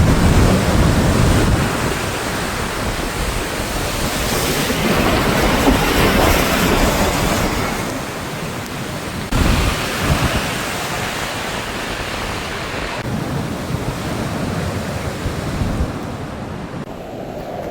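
Loud storm noise of wind and surging water, with wind buffeting the microphone. The sound changes abruptly about nine and about thirteen seconds in.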